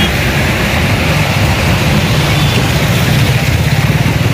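Traffic in heavy rain on a flooded street: motorbike and auto-rickshaw engines running over a steady loud wash of noise, with a low rumble underneath.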